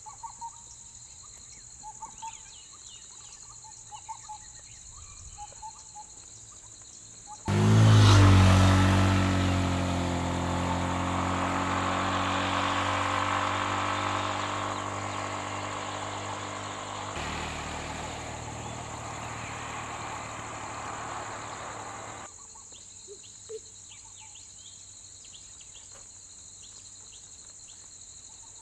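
Steady insect drone with scattered bird chirps. About a quarter of the way in, a motor vehicle engine comes in suddenly close by, loudest at first. It runs for about fourteen seconds, slowly fading, then cuts off abruptly, leaving the insects and birds.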